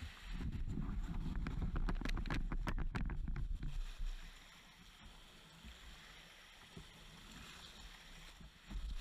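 Kevlar/carbon-fibre sea kayak hull grinding and crunching on a shingle beach as the paddler gets in and pushes off. A loud low scraping with a run of sharp clicking crunches over the first few seconds, then quieter for a while, then grinding again near the end.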